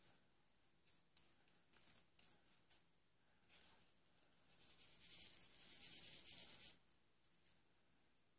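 Faint rustling of tiny seed beads being swirled and shifted in a small plastic bead tray, with a few light clicks early on and a longer soft hiss from about three and a half seconds in until near seven seconds.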